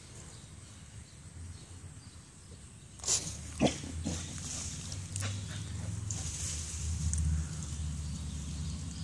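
A dog sniffing with its nose right against the camera: two sharp knocks about three seconds in, then close-up sniffing and rubbing noise on the microphone.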